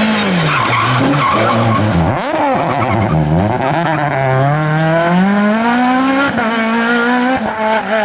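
Peugeot 306 Maxi kit car's 2-litre four-cylinder rally engine, revs dropping hard as the car brakes and shifts down into a bend, dipping almost out for a moment about two seconds in, then climbing steeply as it accelerates away. The note steps down once about six seconds in, an upshift, and falls away near the end as the throttle is lifted.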